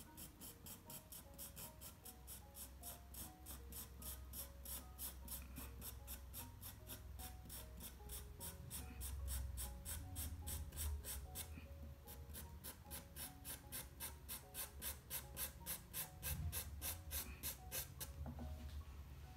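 Coloured pencil scratching across toned paper in quick, even hatching strokes, about four to five a second, with a brief pause about halfway and stopping near the end, over soft background music.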